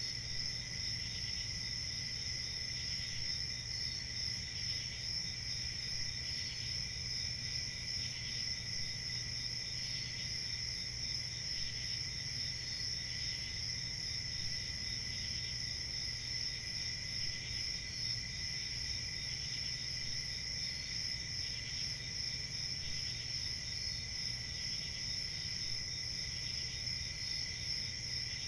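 A chorus of crickets chirping: a steady high-pitched trill from several crickets at once, with other crickets chirping over it in short repeated pulses, and a low steady hum underneath.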